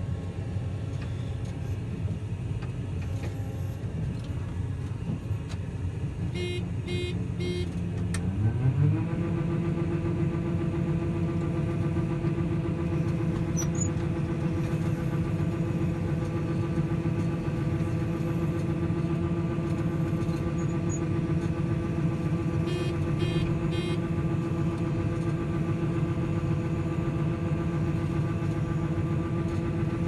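Combine harvester running, heard from the cab. About eight seconds in its pitch rises and settles into a steady higher hum as the unloading auger is engaged and starts pouring oats into the truck. Two short runs of quick electronic beeps sound, one just before the rise and one past twenty seconds.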